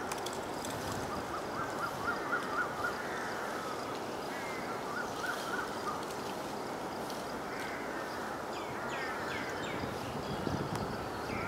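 Outdoor daytime ambience of birds calling in the trees: a quick run of short repeated notes twice, then a few downward-sweeping calls near the end, over a steady background hum.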